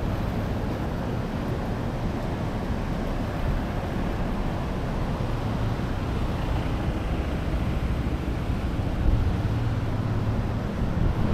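Steady rushing of floodwater pouring down below a dam, a dense, low-heavy noise that swells briefly about nine seconds in.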